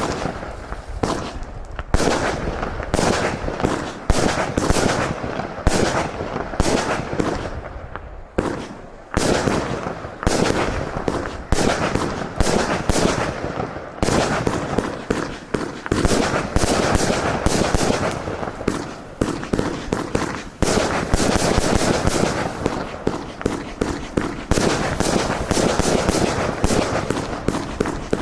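Consumer F2 compound firework cake firing a fast, continuous string of shots and bursts, several a second, with brief lulls about 8 seconds in and again around 14 seconds.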